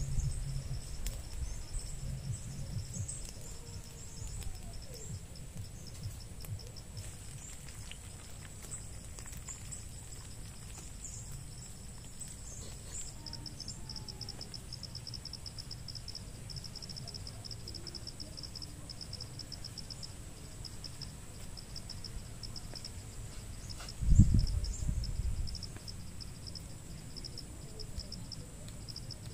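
Insects chirping in a fast, steady pulse over a low rumble, with one low thump about 24 seconds in, the loudest sound.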